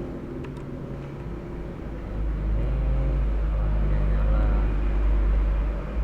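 A low, steady engine-like rumble with a hum, growing louder about two seconds in, with a faint click near the start.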